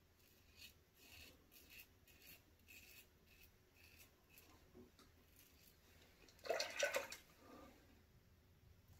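Italicao open-comb safety razor scraping through lathered stubble in a series of short, faint strokes, about two a second. A brief louder noise breaks in about six and a half seconds in.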